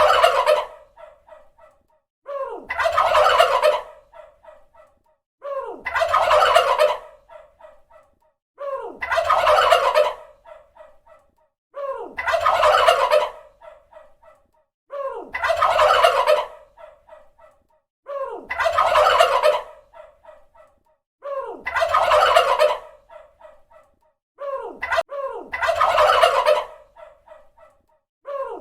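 Domestic turkey tom gobbling: a loud, rapid rattling call lasting about a second and a half, repeated about every three seconds, each one the same.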